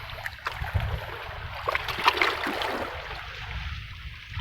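Seawater lapping and splashing at the water's edge in small irregular splashes, over a steady low rumble.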